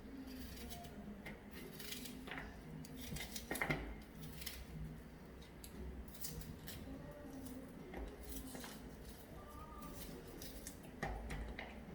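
Kitchen knife cutting up an onion by hand: a run of irregular light cuts and clicks, with one louder knock a little after three seconds in.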